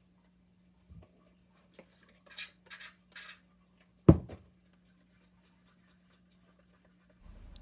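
Three short scrapes, then one sharp knock a second later, from paint cups and tools being handled on a work table.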